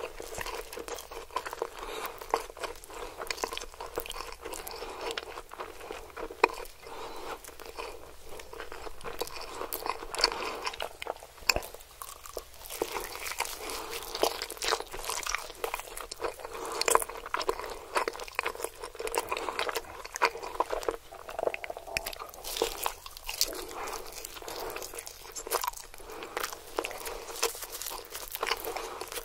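Close-miked eating of rotisserie chicken: biting into the roasted skin and meat, crunching and wet chewing with many small mouth clicks, and pieces torn off by gloved hands.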